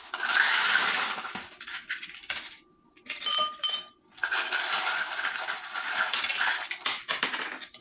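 Ice cubes rattling and crunching as a plastic scoop digs through a tub of ice, twice for a couple of seconds each, with a few ringing clinks of cubes dropping into a glass about three seconds in.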